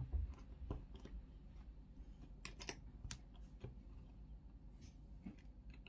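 Lego bricks clicking as plastic pieces are handled and pressed together: faint, irregular clicks at an uneven pace.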